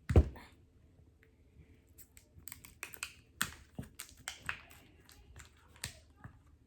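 A thump just after the start. From about two and a half seconds in come a string of small sharp plastic clicks and crinkles as a toy's small plastic package is handled and opened.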